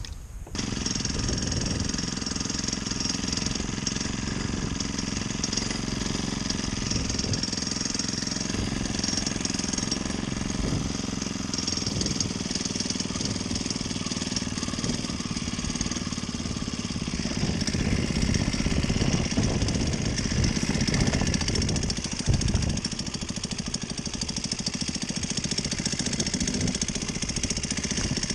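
Small four-stroke Honda GX35 outboard motor on a kayak running steadily under way.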